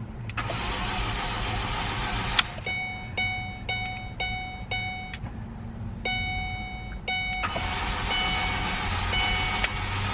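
Ford Focus engine cranking on its starter without catching, a no-start even though fuel is reaching it. A dashboard warning chime beeps over it, about twice a second for a few seconds, then one longer tone, then more beeps near the end.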